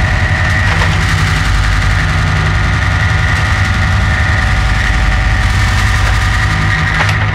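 A loud, steady mechanical hum with a low throbbing drone and a thin high whine over it, engine-like and unchanging throughout.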